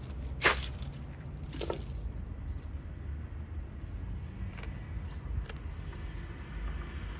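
Grey squirrel biting into ice: two sharp crunches about a second apart, then a few fainter clicks, over a low steady background rumble.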